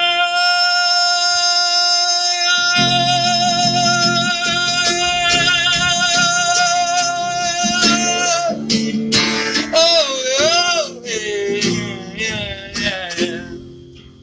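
Man singing a long held wordless "oh" over strummed guitar, the chords coming in about three seconds in. The voice then breaks into a wavering, sliding run of notes that fades away near the end.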